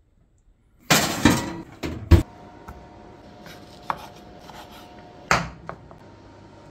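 Sharp knocks and clatter of kitchen work: a knife cutting pickled lemon on a wooden cutting board and metal tongs against a steel frying pan. The loudest knock comes about a second in, with a few more scattered after it over a faint steady hum that starts about two seconds in.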